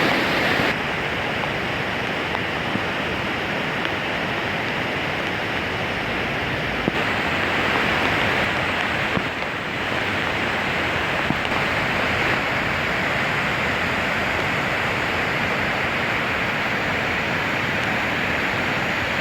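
Rain-fed waterfall pouring down a cliff: a steady rush of falling water.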